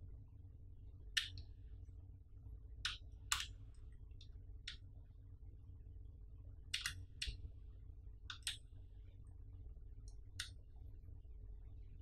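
Sparse light plastic clicks and taps from hands handling a plastic power bank phone case and its USB cable, over a faint steady low hum.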